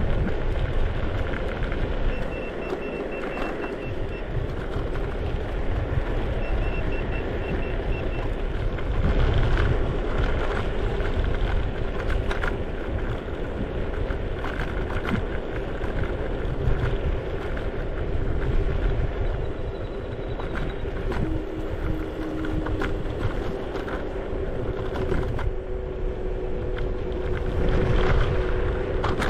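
Wind rushing over the microphone and road noise while riding a scooter through traffic. Two short spells of rapid high-pitched beeping, about two seconds in and again about six seconds in, and a steady hum in the second half.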